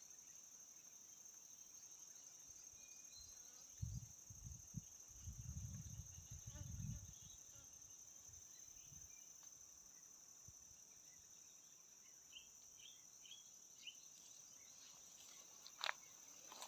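Steady high-pitched insect drone in the riverside vegetation, with a few low thumps about four to seven seconds in and a sharp click near the end.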